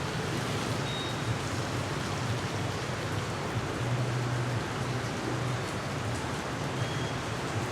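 Steady heavy rain falling, an even dense hiss, with a low hum underneath that swells and fades several times.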